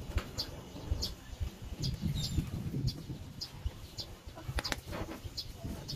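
Irregular light metallic clinks and scrapes of pliers and a brake-shoe scrap knocking against a small metal crucible. Birds chirp in the background.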